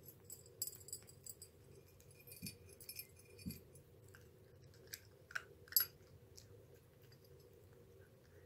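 A cat eating from a ceramic bowl: irregular crunching with small clinks of food and teeth against the bowl, the loudest clicks about five to six seconds in, then it goes quiet.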